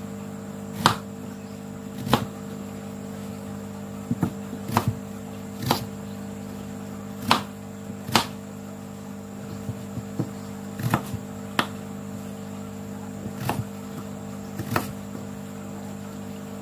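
Kitchen knife cutting raw peeled potatoes on a plastic cutting board: about a dozen sharp, irregular knocks, roughly one a second, over a steady low hum.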